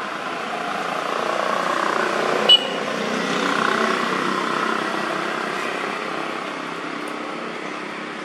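Steady engine and rushing noise of a passing motor vehicle, swelling to a peak a few seconds in and then fading. A single sharp click sounds about two and a half seconds in.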